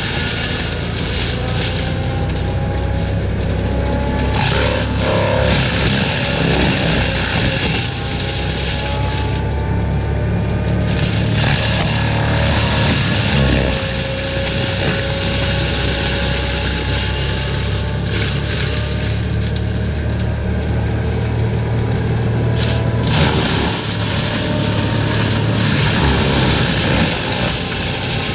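A forestry mulcher running steadily while clearing brush, with the engine's pitch drifting slowly up and down as the mulching head takes and sheds load.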